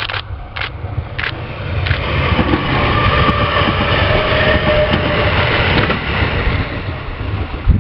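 E491-series electric track-inspection train passing at speed: a rumble of wheels on rails that builds to a peak as the cars go by about three to six seconds in, then fades.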